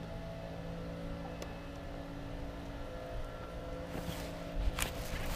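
Steady motor hum made of several even, unchanging tones. About four seconds in, rustling comes in with a sharp click near the end.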